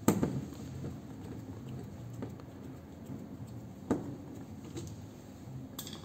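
Phillips screwdriver working screws out of a washing machine's rear access cover: a sharp click of tool on screw or panel right at the start, another about four seconds in, and faint ticks and scrapes between, over a low hum.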